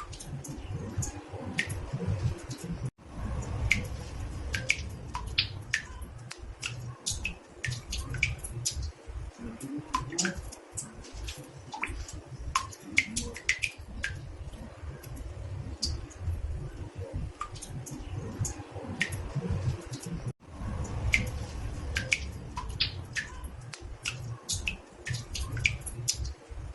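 Water drops falling into a bathtub, an irregular stream of small pitched plinks and drips over a low rumble. The sound cuts out for an instant twice, about three seconds in and near twenty seconds in.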